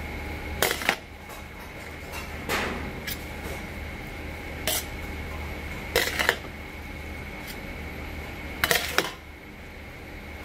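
Metal spoons clanking against the side of a large stainless steel bowl as glass noodles are tossed and mixed. The clanks come in short clusters every couple of seconds, five times, over a steady low hum.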